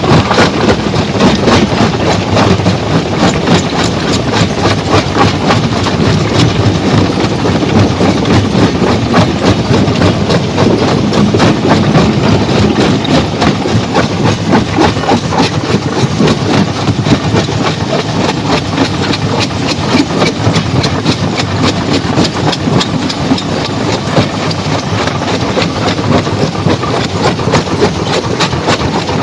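Heavy stone-crushing machinery running steadily under a continuous engine drone, with a fast, even rattle of knocks.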